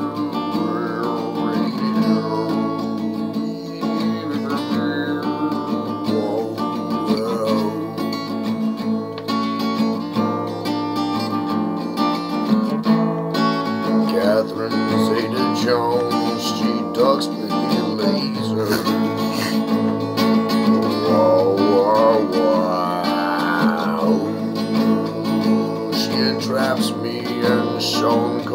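Acoustic guitar playing, chords ringing on steadily.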